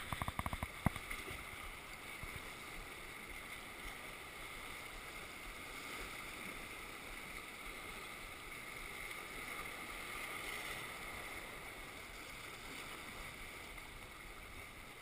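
Sea waves washing steadily over shoreline rocks, with a short run of clicks in the first second.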